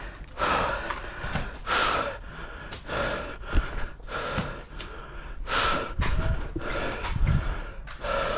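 Heavy, rapid breathing of a person panting close to the microphone after exertion, one breath about every half to one second, with a couple of sharp clicks in between.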